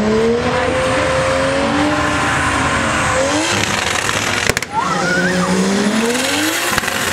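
Mercedes-Benz saloon's engine revving hard up and down during a burnout, its rear tyres spinning and squealing on the asphalt. The revs climb and fall several times, with a brief break about four and a half seconds in.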